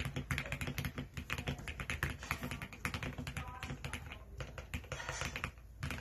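Continuous fast typing on a GMMK Pro mechanical keyboard with Alpaca linear switches, PBT keycaps and a PE-foam mod: a dense run of key clicks with a short pause near the end.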